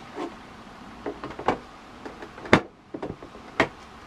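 Sewing machine extension table being fitted against the bed of a Brother PQ1500SL: several hard plastic knocks and clicks as it is set down and pushed into place, the loudest about two and a half seconds in and another about a second later.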